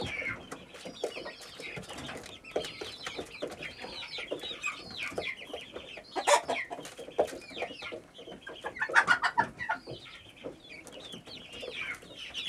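A flock of Pushkin striped-speckled chickens clucking and calling over one another, with louder squawks about six seconds in and again around nine seconds.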